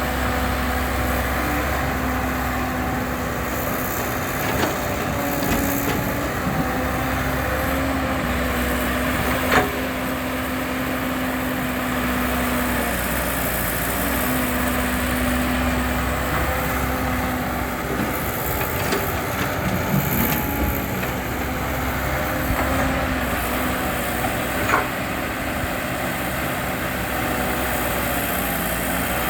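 Heavy earthmoving machinery running steadily, the engine note stepping up and down as it works, with two sharp knocks, one about ten seconds in and one near the end.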